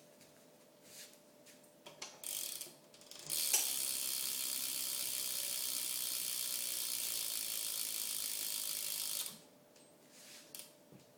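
Odyssey rear BMX hub freewheeling as the back wheel spins. Its pawls ratchet in a fast, steady run of clicks for about six seconds, then stop. Before it, from about two seconds in, there are a few knocks from handling the bike.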